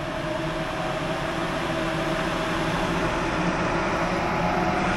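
Vevor explosion-proof ventilation fan running, a steady motor hum with a rush of moving air, growing gradually louder.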